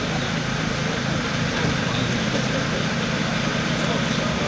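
Steady low rumble of an idling engine, with even street noise over it.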